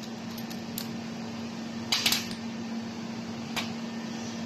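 Small metal parts from a handheld laser welding gun's head clicking and clinking as they are taken off and set down, the loudest clink about two seconds in and a lighter one a second and a half later, over a steady low hum.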